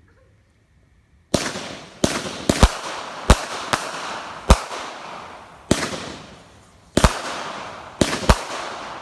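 Black Cat 'Sure Fire' consumer firework going off: after a second or so of quiet, a string of sharp bangs at irregular intervals, about a dozen, with a hissing crackle between them.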